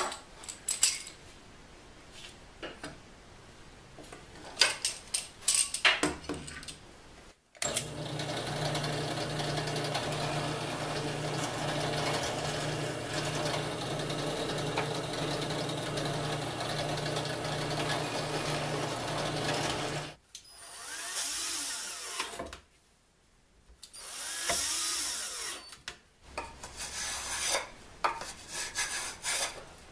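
Wooden pieces knocking and clattering as they are handled, then a drill press running steadily for about twelve seconds while drilling into a clamped hardwood sled part. Two shorter bursts of a power tool and some scraping follow near the end.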